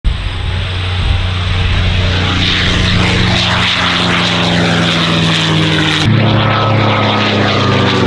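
Packard Merlin V-12 engine and propeller of a P-51D Mustang running at power as the fighter passes low. About six seconds in the sound cuts to another pass, its engine note starting to fall in pitch as the plane goes by.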